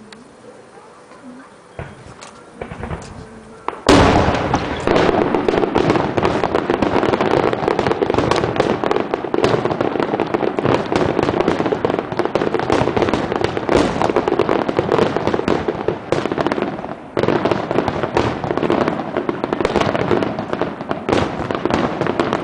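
Fireworks display: a few scattered pops, then about four seconds in a sudden loud barrage of dense bangs and crackling that keeps going, easing briefly about three quarters of the way through.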